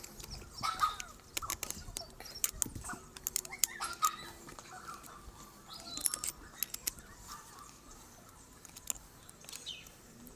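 Light, irregular metal clicks and clinks of an Allen key and clutch hardware as the clutch is unbolted from a small two-stroke engine.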